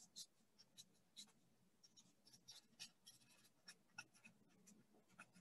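Faint, quick squeaks and scratches of a Sharpie marker writing on paper, a dozen or so short irregular strokes.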